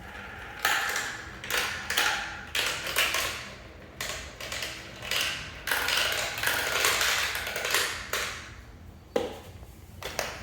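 Marbles clattering and rolling along a marble run track, in a string of short runs that each start with a sharp clack and fade out.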